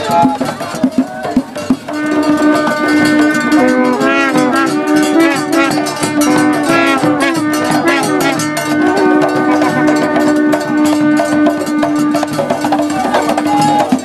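Drum ensemble playing hand drums with a clanking bell-like beat, and a melody held on long notes that wavers and bends above the drumming from about two seconds in.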